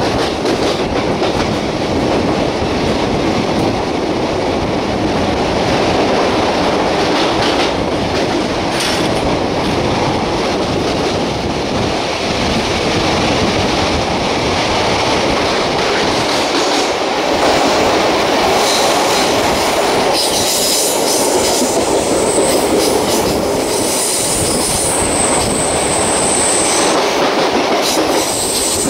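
Indian Railways express passenger train running at speed through a rock tunnel, heard close from the side of a coach: a steady, loud rumble and clatter of wheels on rails. From about twenty seconds in, high-pitched wheel squeal rises over the rumble on and off.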